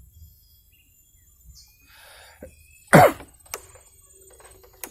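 A person's short wordless vocal sound, falling in pitch, about three seconds in, with faint bird chirps around it.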